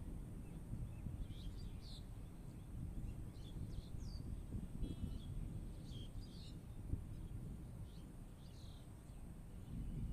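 Low, steady rumble of wind with small birds chirping in short scattered calls throughout, over a faint steady high-pitched tone.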